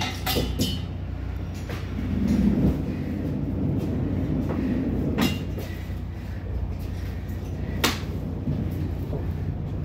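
Loaded manual pallet jack rolling across a trailer's wooden floor: a steady low rumble, with two sharp knocks about five and eight seconds in.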